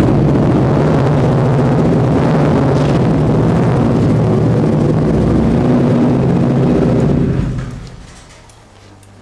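Kawasaki Z650 motorcycle's parallel-twin engine running steadily, then ridden away, the sound fading out about eight seconds in.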